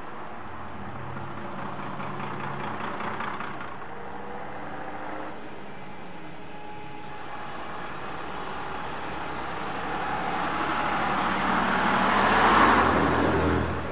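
Bus engine running on a road, building steadily to its loudest as the bus passes close near the end, then dropping away suddenly.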